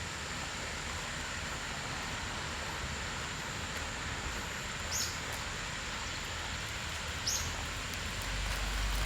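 Wide, low two-tiered waterfall, water pouring steadily over a broad rock slab. Two short high calls, from a bird or similar, cut through about five and seven seconds in, and a low rumble swells near the end.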